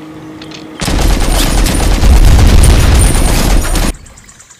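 Edited-in battle sound effect of rapid gunfire and explosions: a loud, dense burst of shots with heavy booms starting about a second in, lasting about three seconds and cutting off abruptly.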